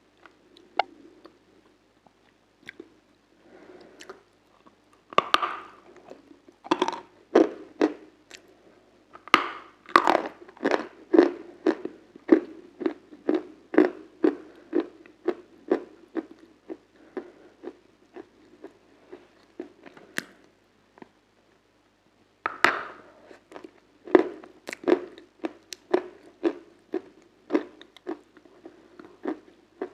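Close-miked biting and chewing of crunchy food, with sharp crunches about two a second. The chewing pauses for a couple of seconds and starts again with a loud bite.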